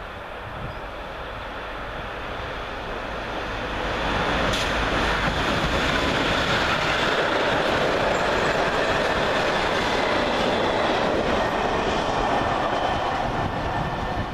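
Freight train of covered sliding-wall wagons hauled by an E186 electric locomotive passing close by. The rumble builds over the first four seconds as the train arrives, then holds as a steady rolling rumble and rattle of the wagons going by.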